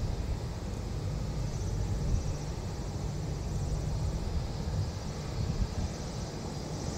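Boeing 787-8 with Rolls-Royce Trent 1000 engines taxiing slowly at idle: a steady low rumble with a faint high-pitched whine, and wind buffeting the microphone.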